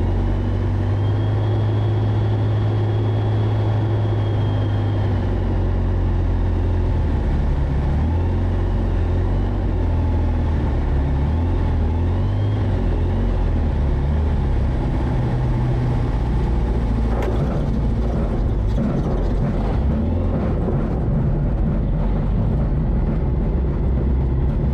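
Small plane's piston engine and propeller running at approach power, heard inside the cockpit during final approach with full flaps, with a power change about five seconds in. Later there is a spell of knocks and rattles as the airplane touches down and rolls out on the parking lot.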